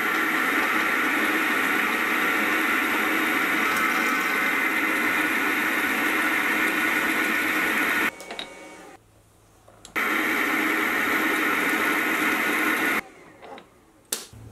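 Milling machine spindle running with a twist drill in its chuck, drilling a hole into a steel block as a steady whir. The whir cuts off abruptly about eight seconds in, returns about two seconds later, and stops again near the end, followed by a single click.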